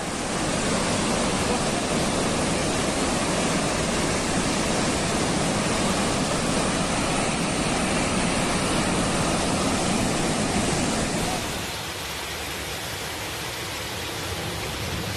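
Steady, loud rushing noise with no distinct events, dropping to a quieter, thinner hiss about eleven and a half seconds in.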